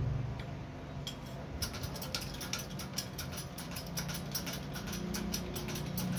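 Hydraulic shop press being worked to press a gear onto a drill spindle, the ram coming down onto the part. From about a second and a half in there is fast, even clicking, about six a second, over a low hum.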